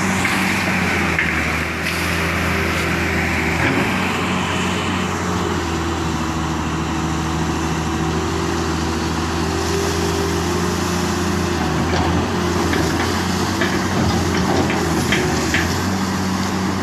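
Caterpillar 325L excavator's diesel engine running steadily under hydraulic load, with water splashing and pouring over the cab from its own bucket; the splash hiss is strongest in the first few seconds.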